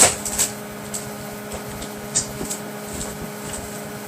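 A sharp click as a plug is pushed in, followed by a few lighter handling clicks over a steady electrical hum.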